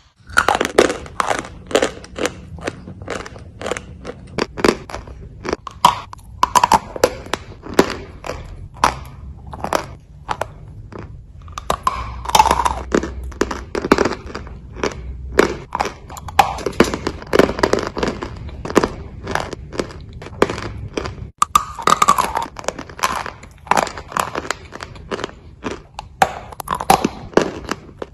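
Someone biting and chewing a block of white chalk: irregular dry crunches and snaps, several a second.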